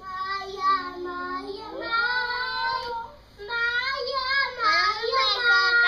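A young child singing long, wavering, drawn-out notes into a toy microphone, in two phrases with a short break about three seconds in.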